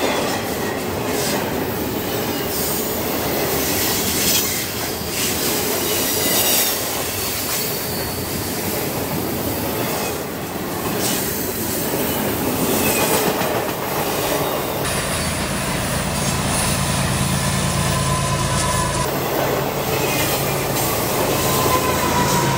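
CSX double-stack container train passing close by: steady rolling rumble and clatter of wheels on rail, with brief high-pitched wheel squeals. From about fifteen seconds in, the steady low drone of the rear-end diesel locomotive pushing the train grows in as the locomotive comes alongside.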